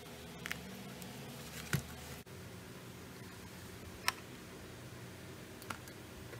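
A few sharp, light clicks and taps from hands handling a small metal-and-plastic instrument enclosure, over a steady low background hum.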